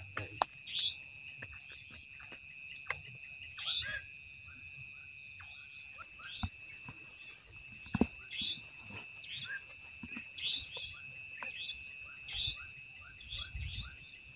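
Night-time riverside animal chorus: insects hold a steady high-pitched drone while short chirping calls repeat every second or so. A few soft knocks come through, about half a second in and again near eight seconds.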